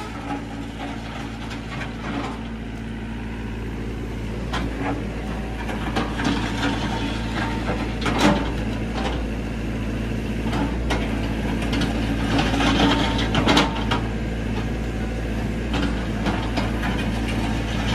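LiuGong compact excavator's diesel engine running steadily while its bucket digs into dirt and stones, with scattered knocks and scrapes. The scraping is busiest about eight seconds in and again around thirteen seconds.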